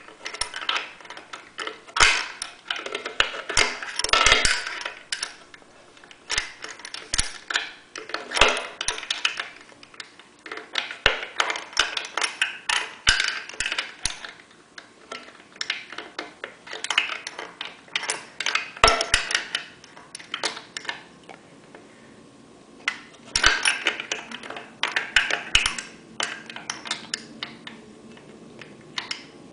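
Metal wrench clicking and clinking against an outboard carburetor's mounting nut in bursts of short strokes, with brief pauses between, as the nut is snugged down.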